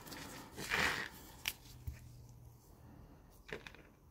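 Costume jewelry being handled and sorted: a short rustle about a second in, then a few light clicks and taps.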